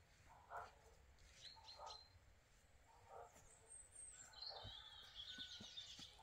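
Faint outdoor sounds: short hen clucks every second or so, with wild birds chirping and a high trilling song in the second half. A few soft knocks come near the end.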